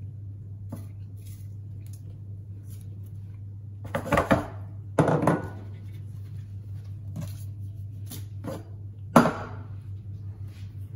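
Kitchenware handled on a wooden worktop: a ceramic bowl and a stainless steel saucepan clatter in two short bursts about four and five seconds in, with a single sharp knock about nine seconds in and small clicks between. A steady low hum runs underneath.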